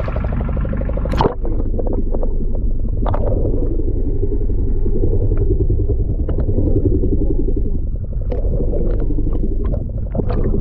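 Muffled underwater sound from a submerged camera: a steady low rumble of sea water with scattered small clicks and pops, and one sharp impact about a second in.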